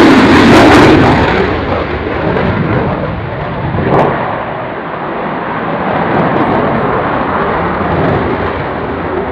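Dassault Rafale's twin jet engines at high power as it takes off and climbs away. The sound is loudest in the first second and a half, then eases to a steady rumble, with a brief louder swell about four seconds in.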